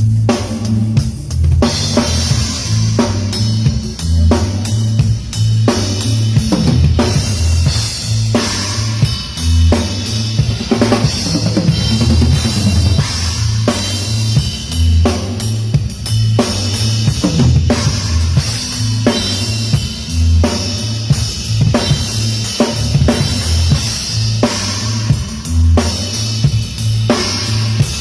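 Drum kit played in a steady groove with kick drum, snare and rimshots, the cymbals joining about two seconds in, over a bass line of held low notes from the rhythm section.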